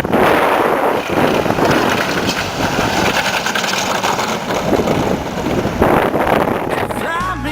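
Strong wind buffeting the microphone, a loud rushing noise that swells and dips.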